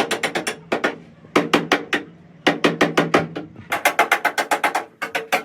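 Ratchet wrench being worked in quick strokes: bursts of rapid clicking, about ten clicks a second, with short pauses between strokes.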